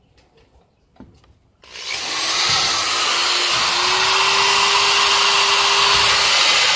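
A handheld power tool switches on about a second and a half in and runs steadily, its motor tone rising as it spins up and then holding. It is being used to strip paint from a bicycle frame.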